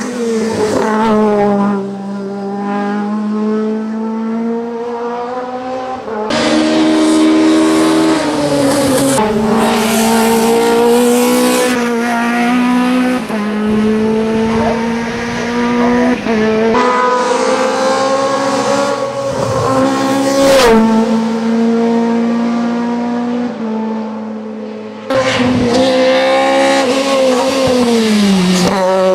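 Opel Kadett E hill-climb race car's engine at high revs under hard acceleration, its note climbing and then stepping abruptly down and up again over and over as it is shifted through the gears and lifted for corners.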